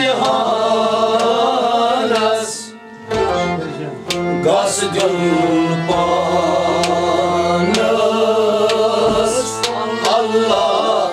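Kashmiri Sufi ensemble playing: harmonium, bowed sarangi, rabab and a noot clay-pot drum struck in a steady beat, under male voices singing. The music drops away briefly about three seconds in, then picks up again.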